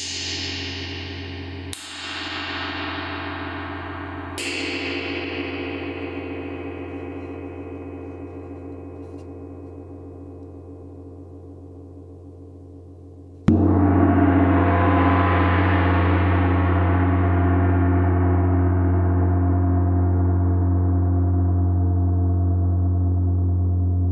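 A 28-inch Chinese Chau gong is struck three times near the start, about two seconds apart, and rings with many pitches and overtones, fading slowly. About halfway through it is struck much harder: the sound swells with bright overtones and rings on loud and long.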